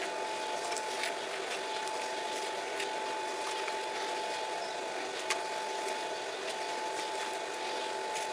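Steady mechanical hum with a thin high whine, over which a hand tap in a tap wrench gives faint irregular clicks and creaks as it cuts threads into a steel plate.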